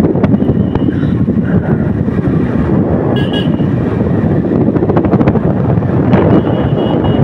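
Wind rushing over the microphone of a motorcycle being ridden, over its engine and road noise. Short vehicle horn toots sound about three seconds in and again near the end.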